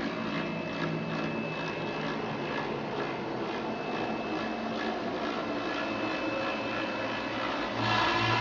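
CNC router spindle running a long foam-milling bit through EPS foam: a steady high whine over a rushing, grating cutting noise, a little louder near the end.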